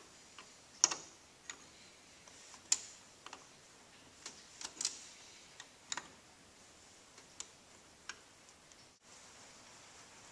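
Irregular metallic clicks and taps, about one a second, from a hand wrench working a fuel-line fitting on a Beckett oil burner.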